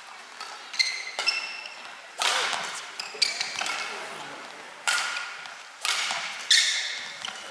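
Badminton rally: a shuttlecock struck back and forth with rackets, sharp hits about once a second, each with a brief high ringing ping from the strings, echoing in a large hall.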